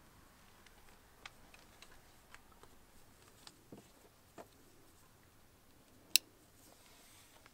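Small clicks and ticks of a car tent's tie-down strap and its buckle being handled and fastened around a car wheel, with one sharp, loud click about six seconds in.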